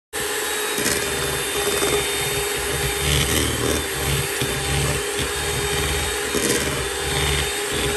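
Electric hand mixer running steadily at one speed, its beaters creaming softened butter in a stainless steel bowl.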